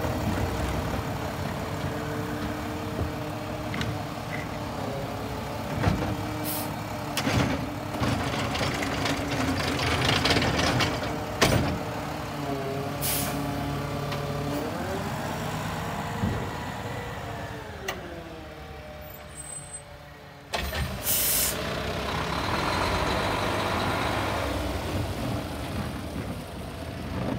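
Garbage truck's diesel engine running with a hydraulic whine that rises and falls as its automated side-loading arm lifts, dumps and sets down recycling carts, with sharp clunks of the carts. About twenty seconds in it changes abruptly to a rear-loader garbage truck running, with a steady hiss.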